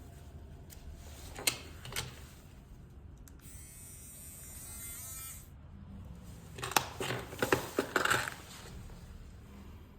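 Small hard clicks of tools or parts handled on a repair bench, twice, then a buzz lasting about two seconds, then a short run of clattering clicks.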